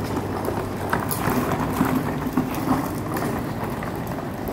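Small plastic wheels of a child's suitcase rolling and clattering over a marble tile floor, with footsteps and the busy echo of a large hall around them.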